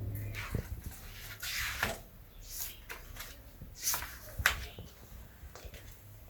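Paper rustling as a picture book's pages are handled and turned, in several short swishes.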